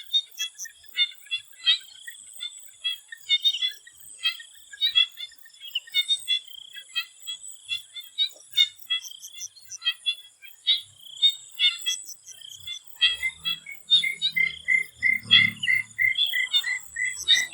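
A chorus of swamp frogs, many short croaking calls overlapping at uneven intervals, over a steady high-pitched drone. In the last few seconds one frog repeats a call rapidly and evenly, about two or three times a second.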